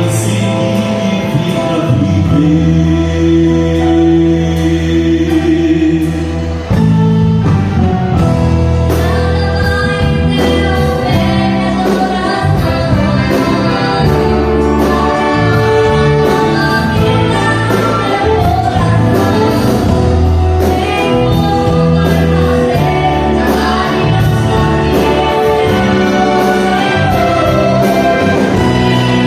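Gospel song performed with singing over instrumental accompaniment that holds sustained bass notes.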